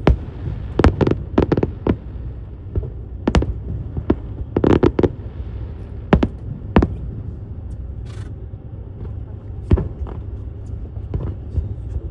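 Fireworks display: shells bursting in an irregular string of sharp bangs, several coming close together around four to five seconds in, over a steady low rumble.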